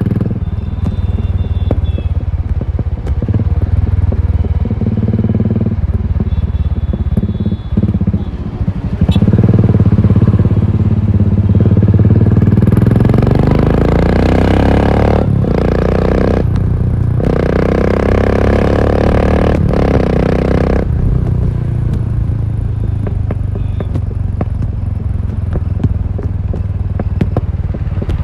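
Royal Enfield Continental GT 535's single-cylinder engine running through an aftermarket exhaust while being ridden. Partway through, the revs climb in a rising pitch, broken by a few sudden short drops in the sound, then the engine settles back to a steadier run.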